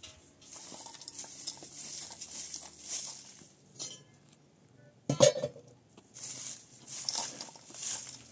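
Short straw hand broom sweeping bare dirt ground, a run of brisk swishes. A single sharp knock about five seconds in is the loudest sound.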